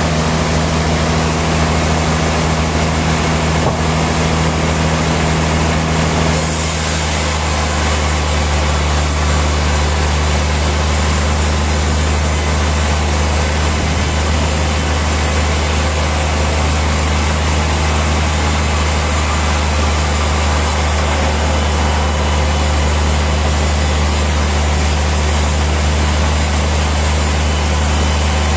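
Heavy sawmill machinery running steadily: a deep engine-like drone under a constant hiss, with a shift in the drone's pitch about six seconds in.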